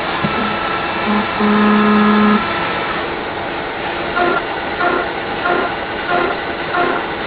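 Steady running noise of a CNC polygon lathe. A steady hum comes in for about a second near the start. In the second half, short tones repeat a little under twice a second.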